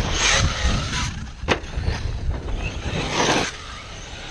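RC monster truck driving hard over loose dirt: bursts of tyre and gravel hiss over a low rumble, with one sharp knock about a second and a half in. A last burst comes a little after three seconds, then the sound drops off as the truck goes airborne.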